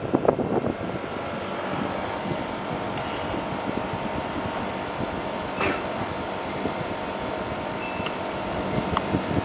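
Samsung AR09KRFLAWKN 1.0 hp mini-split air conditioner running with a steady rush of airflow and a faint steady whine. The uploader says the airflow is restricted by very dirty evaporator coils.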